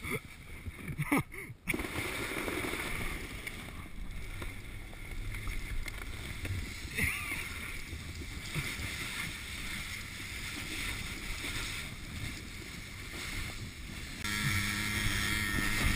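Plastic sledge being towed over snow, with a steady rushing hiss of the sledge and wind. About fourteen seconds in, the drone of the towing quad bike's engine comes up louder as a steady low hum.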